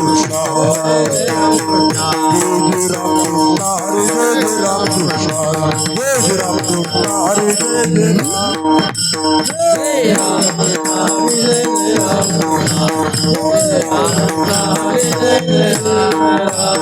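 Marathi devotional bhajan music with no sung words: hand cymbals clash continuously, with drumming, over steady held notes.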